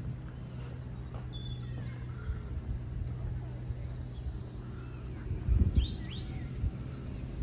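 Songbirds chirping and whistling on and off, over a steady low hum of outdoor background noise. About five and a half seconds in there is a brief low thump, and just after it two louder sweeping bird calls.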